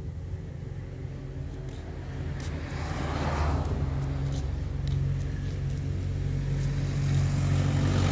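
Light flatbed truck's engine running as it approaches along the road, growing steadily louder.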